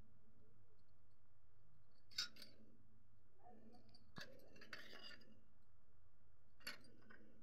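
A metal spoon clinking and scraping against a steel bowl while toppings are spooned onto chaat. There is a sharp clink about two seconds in, a longer scrape between four and five seconds, and another clink near the end, all over a low steady hum.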